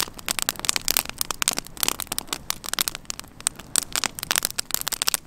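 Campfire of sticks and branches crackling, with many sharp, irregular pops in quick succession.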